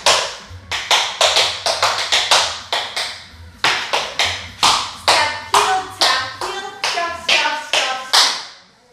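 Metal taps on tap shoes striking the floor in quick rhythmic runs of tap steps, with a short pause about three and a half seconds in; the tapping stops shortly before the end.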